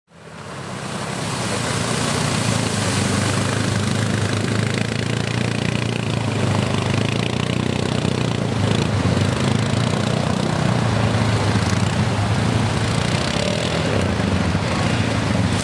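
ATV engine running steadily under load, mixed with rushing, splashing water as the quad fords a shallow river. The sound fades in over the first couple of seconds.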